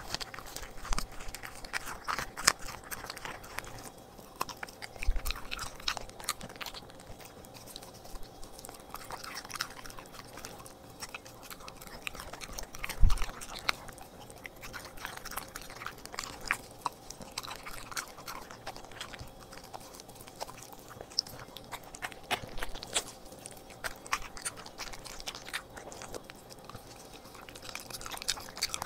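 A corgi biting and chewing hand-fed raw meat, with irregular wet chewing and crunching. A couple of low knocks come through, the loudest about thirteen seconds in.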